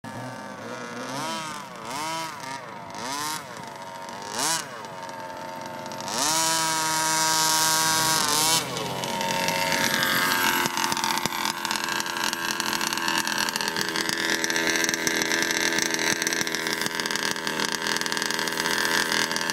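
Small 30.5 cc two-stroke engine of an HPI Baja 5T large-scale RC buggy revving in four or five short blips, then held at high revs for about two and a half seconds before dropping off. After that an engine keeps running steadily, its pitch slowly wavering.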